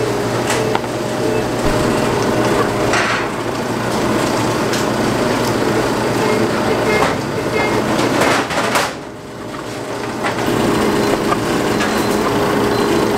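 Bakery dough sheeter running with a steady machine hum, over scattered knocks and clatter of dough work. The hum drops out for about a second around nine seconds in, then resumes.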